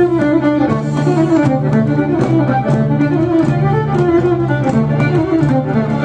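Celtic orchestral-rock instrumental played live: a fiddle carries the melody over held bass notes and a steady drum beat.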